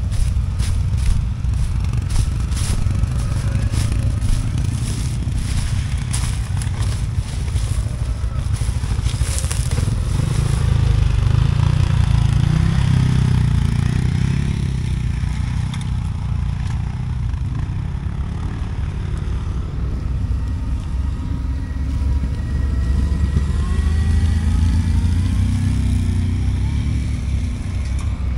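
CF Moto 520L ATV's single-cylinder engine running under load on a steep climb, swelling twice. Over the first ten seconds, rapid crackling and clattering, like brush and stones hitting the machine.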